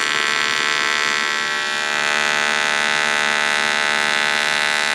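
AC TIG welding arc from a YesWelder CT2050 on an aluminium fuel tank: a steady, even electric buzz at a constant level.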